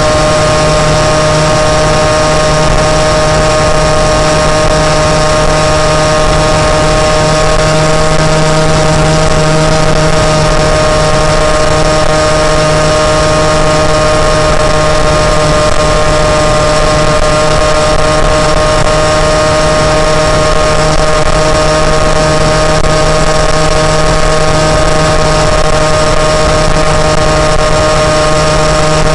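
Moped engine running loud and steady, holding an almost unchanging pitch throughout.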